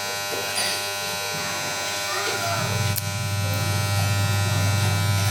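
A machine running with a steady electric buzz; its deep hum grows louder about two and a half seconds in.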